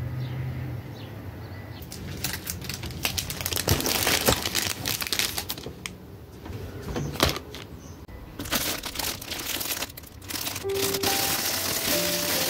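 Clear plastic packaging bags crinkling and rustling as packaged stationery is handled, in two long spells with sharp crackles. A few soft music notes come in near the end.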